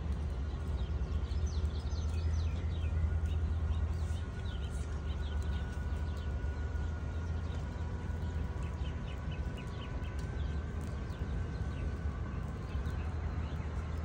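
RV electric awning motor running steadily as the awning retracts, a low hum with a faint higher whine. Birds chirp in the background.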